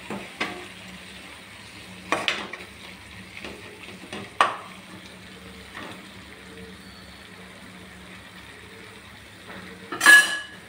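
A steel spoon stirring and scraping a thick mushroom pepper fry in a nonstick pan while the masala sizzles softly underneath, with a few short scrapes and one loud metallic clank near the end.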